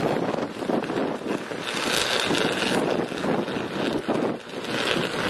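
A high-voltage power arc burning steadily on a utility pole crossarm, giving a continuous rough crackle. The sound turns brighter and hissier from about two seconds in until nearly three seconds.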